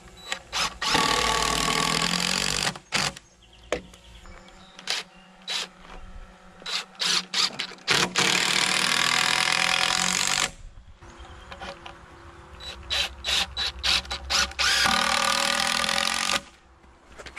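Cordless drill driving screws into timber: three runs of about two seconds each, with short trigger blips in between.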